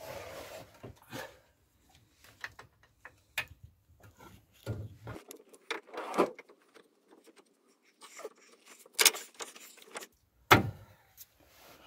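Rover 75 front brake caliper being fitted by hand over the new pads and disc: scattered metal clicks and clanks, with two louder knocks near the end as it seats.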